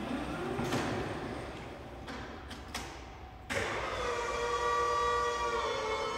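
Yale electric lift truck travelling, its drive motor whining and rising in pitch, with sharp clicks and rattles from the machine. About three and a half seconds in, music with sustained notes starts suddenly and becomes the loudest sound.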